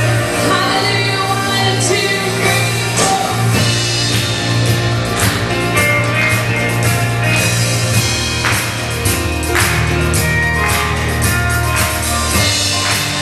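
Live church praise band and choir performing a rock-style worship song: electric guitar, bass and drums with singing. A steady bass line underlies it, dropping lower about eight seconds in, with regular drum hits.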